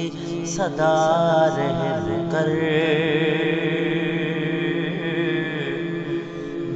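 Male voice singing a naat (Islamic devotional song) in a melismatic style over a steady low drone. About two and a half seconds in, it settles into one long, wavering held note.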